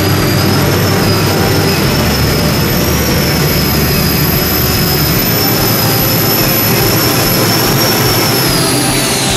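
Turbine-powered modified pulling tractor with four gas turbines under full power, a high, steady turbine whine over a heavy low rumble. About eight and a half seconds in, the whine winds down in pitch as the turbines are throttled back at the end of the pull.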